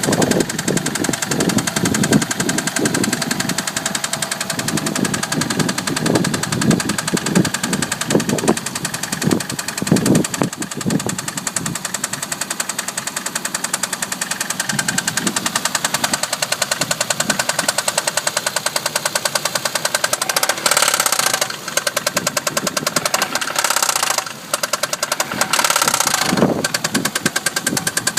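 Toyota Cressida MX83's straight-six engine running with a fast, steady knocking, an engine knock. A few louder surges come in the second half.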